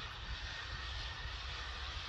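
Steady, distant rushing of the approaching LMS 8F 2-8-0 steam locomotive, with no separate exhaust beats, over uneven wind rumble on the microphone.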